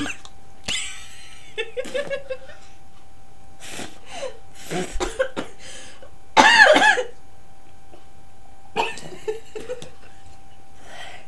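People coughing and spluttering in short fits after taking a spoonful of dry ground cinnamon, the powder catching in the throat; the loudest, harshest cough comes about six and a half seconds in.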